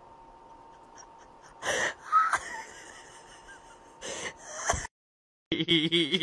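A small long-haired dog gives short breathy snorts, two pairs of them about two seconds apart. After a brief dropout, a steady pitched voice-like sound begins near the end.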